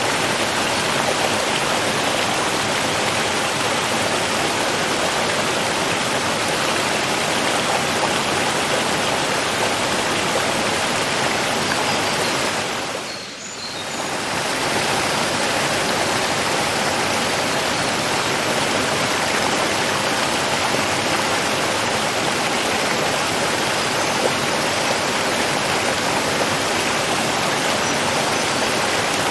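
Running water, a steady full rushing hiss. About halfway through it fades down briefly and comes straight back.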